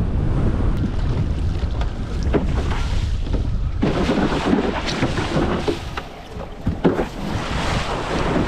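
Wind buffeting the microphone of a windfoiler out on the water. Water splashes and several sharp slaps stand out around the middle.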